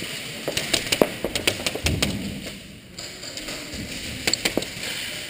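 Irregular sharp cracks and taps of airsoft gunfire and BBs striking, in two clusters: a run from about half a second to two seconds in, then a shorter run around four seconds in.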